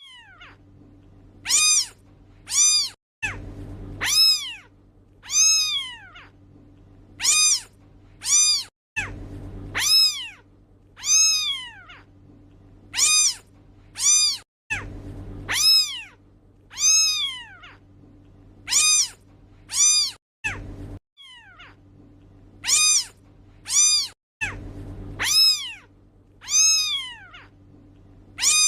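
Kitten meowing over and over, short high-pitched calls that rise and fall, coming about every one and a half seconds, with a low steady hum between the calls.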